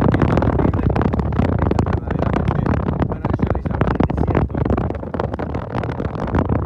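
Wind buffeting the microphone: a loud, rough, continuous noise with constant flutter, easing slightly around the middle.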